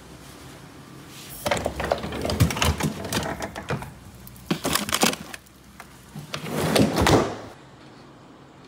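A freezer drawer being opened, then frozen food boxes and a plastic zip bag being handled. Irregular knocks, clatters and rustling run from about a second and a half in to near the end.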